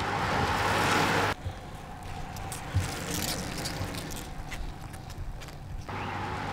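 Road noise: an even rushing of passing traffic that cuts off suddenly about a second and a half in. Quieter sound with scattered clicks and ticks follows, and the rushing returns near the end.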